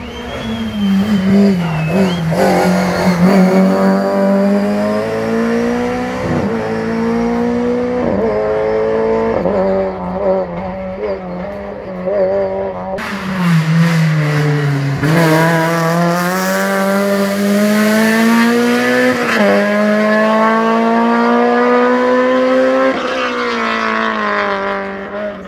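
Rally car engine at high revs. Its pitch climbs through each gear and drops sharply at each upshift, about six times, and it sinks briefly midway as the car slows, then pulls hard again.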